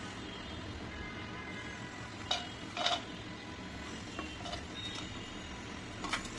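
Cashews and sliced nuts scraped off a plate with a plastic spatula into a nonstick pan of oil for frying: a few short clatters and scrapes, the loudest twice between two and three seconds in and a smaller one near the end, over a steady low hiss.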